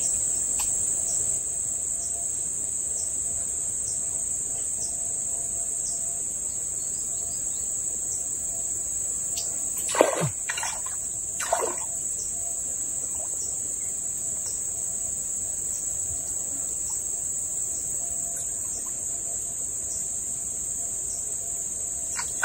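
A steady, high-pitched chorus of forest insects (crickets or cicadas) droning without a break. A few short falling calls come about halfway through.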